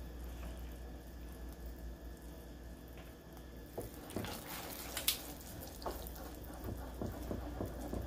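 A silicone spatula stirring hot sugar-candy syrup in a small saucepan: faint liquid swishing, with a few light clicks of the spatula against the pan about halfway through.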